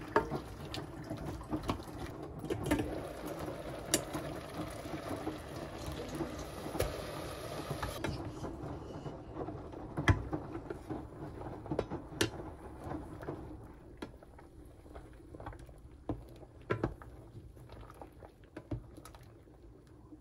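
Washing machine running: a steady hum with scattered sharp clicks and knocks. The hum is softer after about eight seconds.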